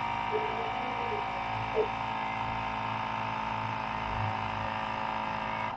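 Built-in air compressor of an M-Triangel M1 Pro bubble remover running with a steady hum as it pressurises the chamber. Near the end it cuts off suddenly: the machine has reached its set pressure of 6 and shut off automatically.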